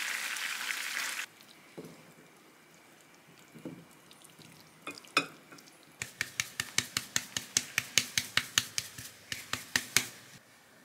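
Food sizzling in a pan that stops about a second in, followed by scattered utensil clicks and then a fast run of sharp clicks of a utensil against a bowl or pan, about five or six a second, for roughly four seconds.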